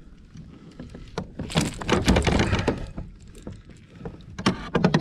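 Handling noise aboard a sit-on kayak as a landed fish is brought in: scattered light knocks, then a loud burst of rustling and knocking about a second and a half in that lasts just over a second, and a few sharp knocks near the end.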